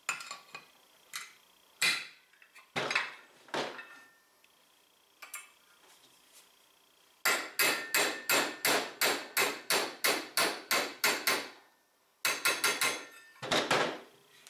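Steel hammer striking a 1/8-inch roll pin punch to drive a roller pin out of a Polaris RZR XP 1000 secondary clutch: metal-on-metal taps. A few spaced knocks come first, then a steady run of about a dozen quick taps at about three a second, and a last short flurry near the end.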